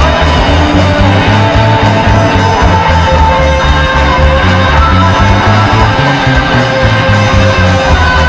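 Live rock band playing: an electric guitar holds long sustained lead notes over bass guitar and a steady drum beat.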